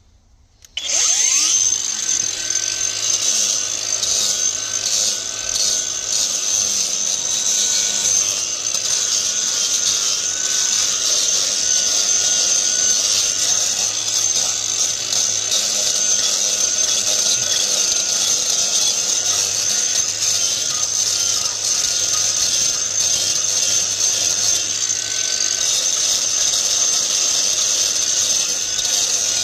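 Cordless angle grinder starting up about a second in, then grinding steadily into the concrete benching of a drain channel with a high whine. The benching is being ground down where it narrows the channel, to reduce resistance.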